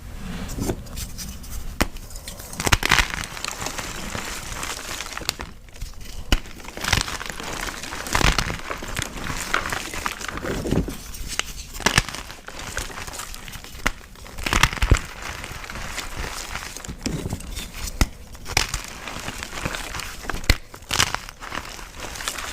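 Blocks of gym chalk being crushed, a steady crumbly crackle broken by louder crunches every second or two and sharp little snaps as pieces break.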